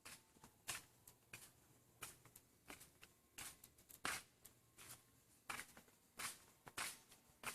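Faint, irregular short rustling strokes, about one or two a second.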